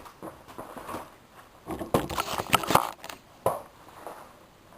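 Hard knocks and plastic-and-metal clatter from a vacuum cleaner being struck with an improvised hammer, a quick run of blows about two seconds in and one more a little later.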